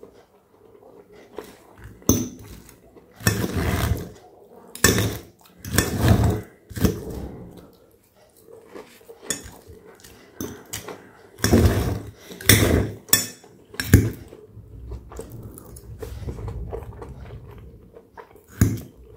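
Knife and fork cutting through a crispy breaded cutlet on a ceramic plate: repeated crunchy scraping bursts as the blade saws through the crust, with a few sharp clinks of metal cutlery against the plate.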